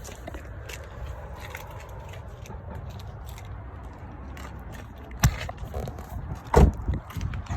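Scraping and clicking over a low steady rumble, with two loud knocks about five and six and a half seconds in.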